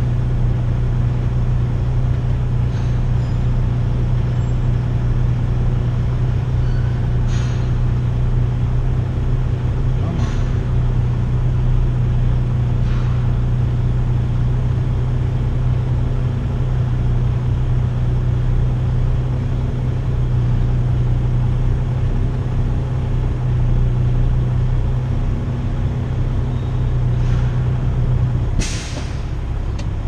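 Semi-truck's diesel engine running with a steady low drone, heard from inside the cab, with a few faint short clicks and hisses. Near the end a sharp hiss of air from the air brakes sounds, and the engine drone drops away.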